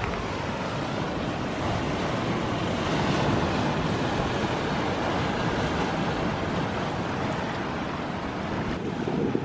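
Ocean surf washing onto the shore, a steady rush that swells slightly about three seconds in, with some wind buffeting the microphone.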